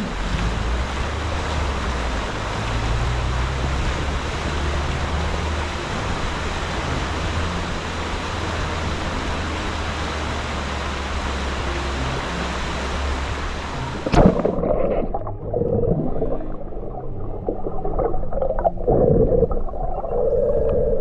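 Shallow river rushing over small rapids, a steady full rush of water with a low rumble beneath. About fourteen seconds in it cuts off suddenly and soft background music with long held tones takes over.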